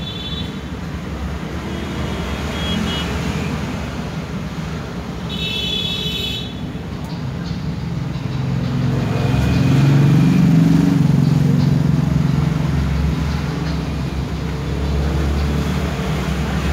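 A steady low rumble of background noise, growing louder from about nine seconds in and easing after twelve. Short high electronic tones from a mobile phone during a test call sound over it, the clearest about five and a half seconds in.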